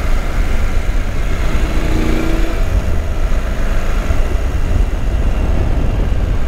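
Motorcycle riding at road speed: steady wind rush over the rider's helmet microphone with the engine running underneath.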